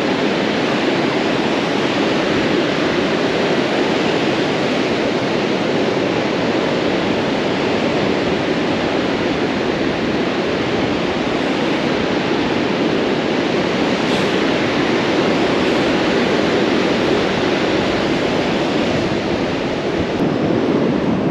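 Ocean surf breaking on a sandy beach: a steady, unbroken wash of wave noise.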